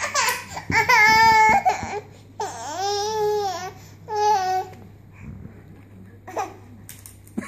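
Twin babies squealing: three long, high-pitched infant cries in a row, the middle one the longest and rising then falling in pitch, with fainter babbling afterwards.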